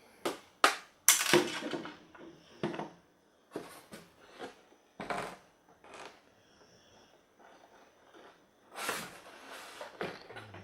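Hard plastic clicks, knocks and rustling scrapes of a plastic toy RC car being handled and turned over in the hands. The sounds come irregularly, with the sharpest knocks in the first two seconds and a longer scraping rustle near the end.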